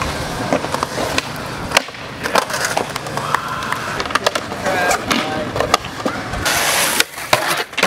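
Skateboard wheels rolling on concrete, with sharp clacks of the board hitting the ground several times and a short scrape about six and a half seconds in.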